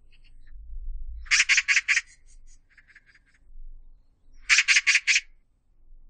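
Oriental magpie giving its harsh chattering call: a rapid run of about five notes a little over a second in, fainter chatter after it, then another run of five about four and a half seconds in.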